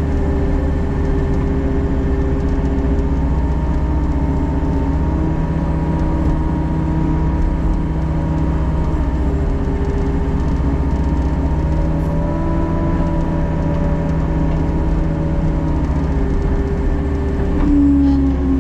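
Diesel engine of a construction machine running steadily under working load, its pitch shifting a little, with a louder whining tone coming in near the end.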